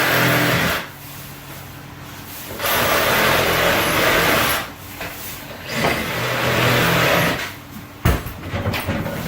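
A motor-driven power tool running in several bursts of a few seconds each, stopping and starting, with a sharp knock about eight seconds in.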